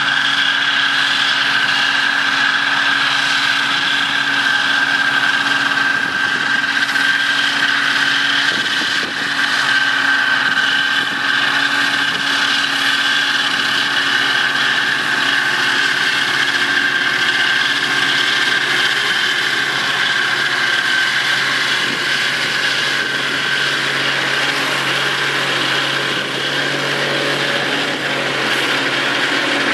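Zetor 9641 tractor's four-cylinder diesel engine running steadily under load, driving a Vicon mower through standing hay.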